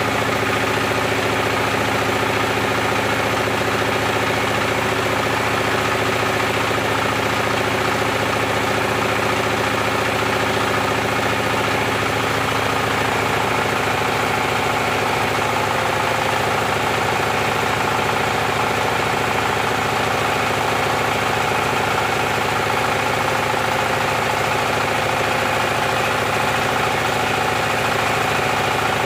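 Dongfeng 24 HP single-cylinder diesel engine running steadily, belt-driving a rice mill machine. The tone of the running shifts about twelve seconds in.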